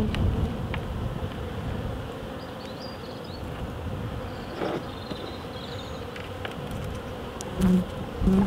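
Honeybees from a small colony buzzing in and around an opened nuc box, a steady hum with two short louder buzzes near the end. Light scraping clicks of a hive tool on wax comb come and go.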